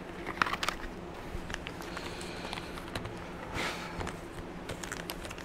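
Paper and a small cardboard packet being handled: light rustles and small clicks as a piston ring set's instruction sheet is taken out and unfolded, with a short louder rustle about three and a half seconds in, over a steady low hum.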